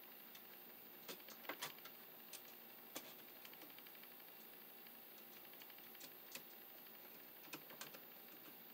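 Faint, irregular clicks and taps of a screwdriver working on a light switch's screw terminals as wires are fastened to them.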